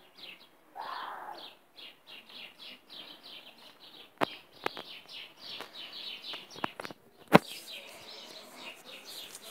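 Small birds chirping in a quick, steady stream of short high notes, a few a second. A few sharp clicks cut through, the loudest about seven seconds in.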